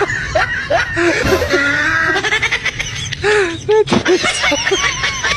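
Laughter in many short chuckling bursts.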